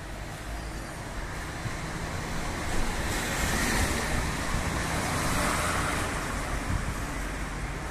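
Road traffic noise: a vehicle passing, its tyre and engine noise swelling to a peak around the middle and easing off near the end.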